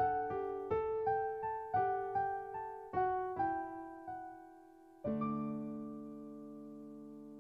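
Background solo piano music: a run of single struck notes, about two or three a second, then a chord struck about five seconds in that rings out and slowly fades.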